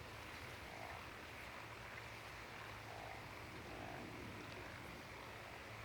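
Faint night ambience of frogs croaking, with soft calls coming at irregular intervals over a low steady hum.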